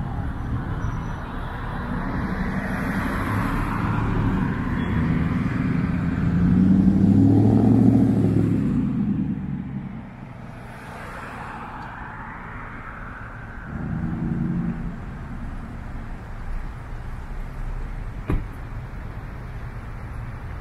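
Car engines and tyre noise in city street traffic. One engine swells to its loudest about seven to eight seconds in and then fades away, and another vehicle comes up briefly about fourteen seconds in. A single sharp click sounds near the end.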